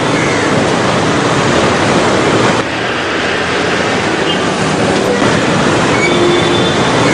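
Loud, steady rumbling noise of road traffic, with a brief dip about two and a half seconds in.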